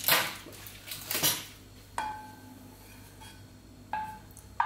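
Wooden spoon stirring cheese and cream in a small pot: a couple of scraping strokes, then three separate knocks against the pot that ring briefly.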